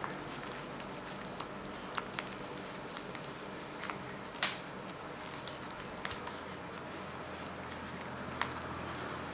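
Folded paper rustling and crackling in the hands as an origami lotus is shaped, with a few short sharp crinkles, the loudest about four and a half seconds in, over a steady background hiss.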